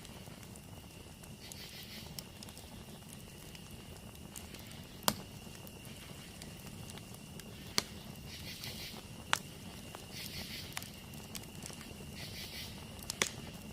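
Campfire burning with a soft crackle and about five sharp pops, spread out irregularly. Behind it runs a steady high-pitched trill, with short bursts of rapid chirping about eight, ten and twelve seconds in.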